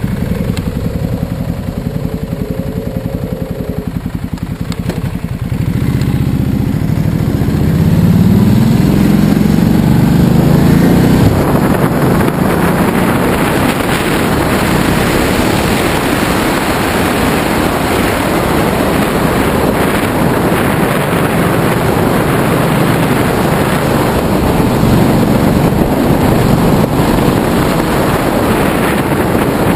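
Ducati Multistrada's L-twin engine ticking over, then pulling away about five seconds in, its pitch rising as it accelerates. It then runs at a steady road speed with wind rushing over the microphone.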